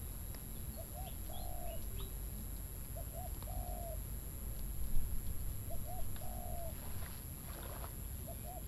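A dove cooing in a repeated phrase, about every two seconds: two short notes, then a longer held note. Faint chirps from other small birds come in now and then.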